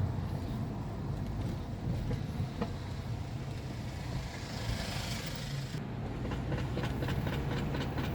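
Steady road and drivetrain hum inside a moving BMW 520d F10, with a rapid run of clicks from about six seconds in as the steering is turned slightly. The clicking comes from the passenger-side front CV joint, whose boot has split so that the joint's inner bearing catches.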